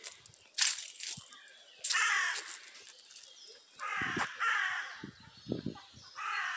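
Crow cawing: several harsh caws spread a second or two apart.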